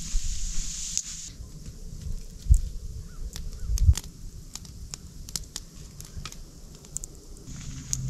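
Campfire crackling with scattered sharp pops, and two dull thumps, one about two and a half seconds in and a louder one near four seconds.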